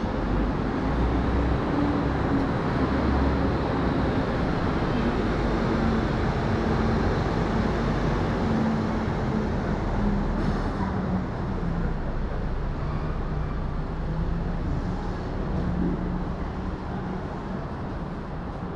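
City street traffic noise, with a vehicle's engine running close by; its pitch wavers slightly and it grows quieter near the end.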